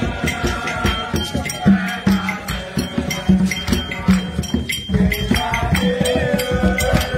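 Music with a steady beat: a low drum about every 0.8 seconds under busy, rapid percussion clicks, with voices chanting over it.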